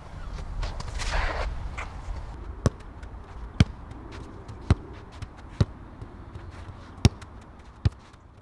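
A football kicked back and forth between two players on a hard games court: about six sharp kicks, roughly one a second, starting a little under three seconds in. Before the kicks there is a short rattle as the metal mesh gate is pushed open.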